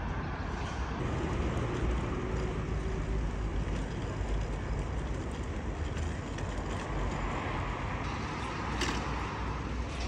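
Steady road traffic from a city street: a continuous wash of passing cars with a heavy low rumble, and one sharp click near the end.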